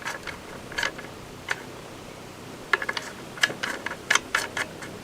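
Scattered clicks and light knocks from the Stihl 020 AV chainsaw being handled and readied to start after a carburettor mixture adjustment, with a quick run of clicks about three to four and a half seconds in. The engine is not running.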